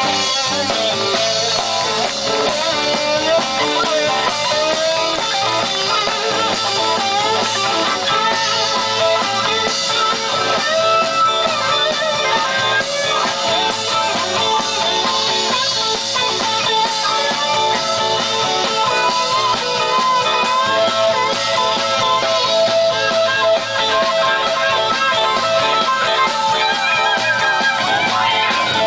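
Live rock band playing an instrumental passage through a PA system: amplified electric guitars over a drum kit, with no singing.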